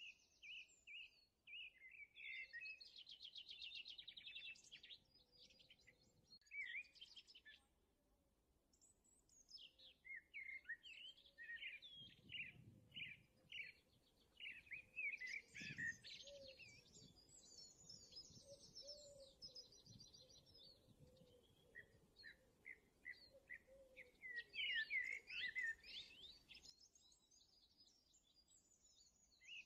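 Faint birdsong: repeated quick high chirps and fast trills, coming in bursts with short pauses between.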